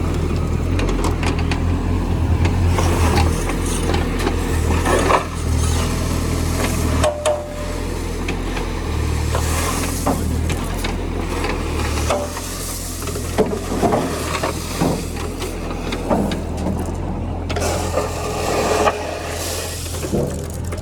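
Mini JCB's diesel engine running steadily, with scattered knocks, clanks and scrapes throughout.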